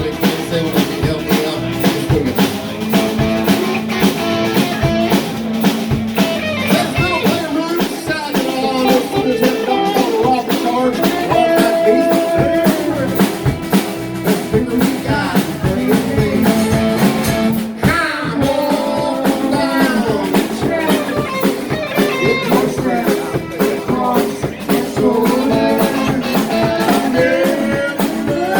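Live rock band with a blues feel playing a song: electric guitar over a drum kit keeping a steady beat, with singing.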